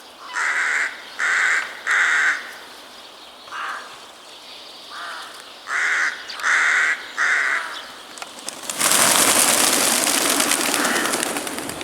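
Crows cawing: two runs of three harsh caws with a few fainter ones between. About nine seconds in, a loud rushing hiss takes over for the last three seconds.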